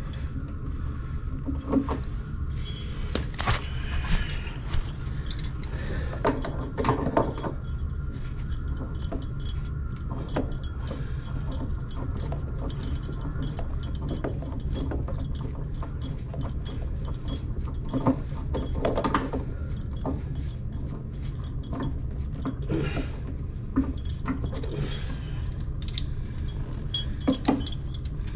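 Intermittent metallic clinks, clicks and rattles from plumbing work on a water heater, over a steady low hum.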